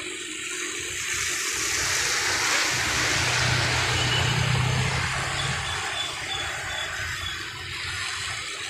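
Motor scooters and a car passing on wet asphalt, their tyres hissing through the water, loudest a few seconds in as a group of scooters goes by, with a steady low engine hum under the hiss.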